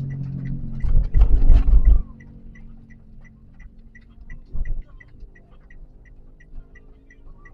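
Car turn-signal indicator ticking steadily, about three ticks a second. A loud rumbling burst comes about a second in and lasts about a second, and a shorter one comes midway.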